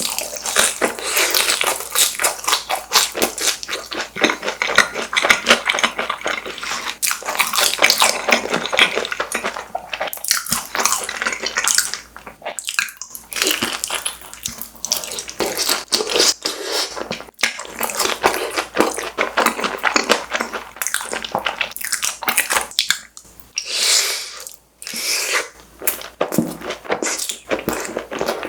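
Close-miked eating of fried Bburinkle side dishes: a dense, continuous run of biting and chewing noises, broken by a few short pauses.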